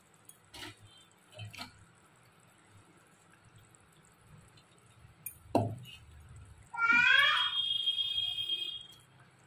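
Fried fish pieces dropped into a kadai of boiling curry gravy, with a splash about halfway through and a few light clicks before it. Near the end a loud high whistling tone rises in pitch, then holds for about two seconds.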